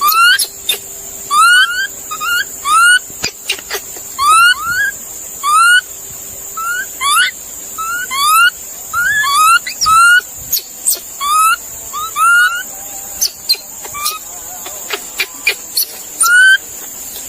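An animal giving short, squeaky calls that rise in pitch, singly or in pairs about once a second, turning to briefer chirps and clicks in the last few seconds.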